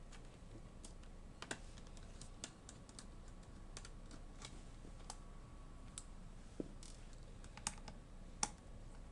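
Scattered light plastic clicks and taps as an access door on a Fujitsu Siemens LifeBook T900 laptop is pried off. The loudest clicks come about a second and a half in and twice near the end.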